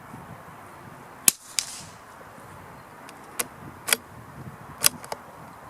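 A single shot from a CZ457 bolt-action .22 LR rifle firing Eley subsonic hollow-point ammunition: one sharp crack about a second in, with a second, fainter crack and a short hiss just after. Several small sharp clicks follow over the next few seconds as the bolt is worked to chamber the next round.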